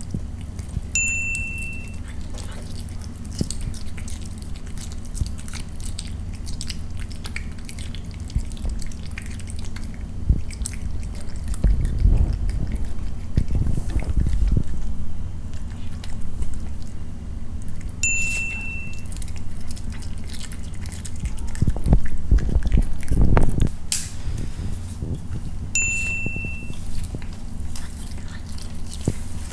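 A cat eating small pieces of raw beef, with wet chewing and biting clicks over a steady low hum. A short bell-like ding rings three times: about a second in, a little past halfway, and near the end.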